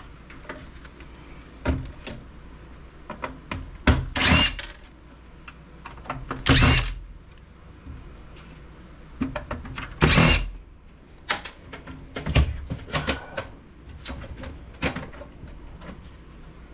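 Cordless power screwdriver or drill whirring in three short bursts as screws are driven out of a computer case, among clicks and knocks of metal and plastic parts being handled.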